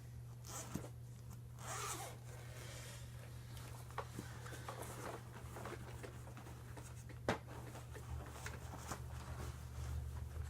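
Hands opening the bag compartment of a Hoover PowerMax upright vacuum and handling the bag inside. Faint rustling and sliding, a small click about four seconds in and a sharper click about seven seconds in, over a steady low hum.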